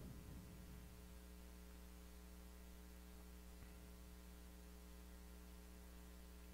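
Near silence with a faint steady electrical hum. No hammer blows are heard.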